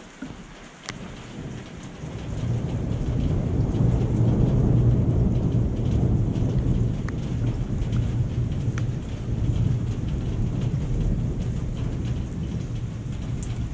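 Thunder rumbling, swelling about two seconds in and rolling on for several seconds, over steady rain with a few sharp ticks of raindrops.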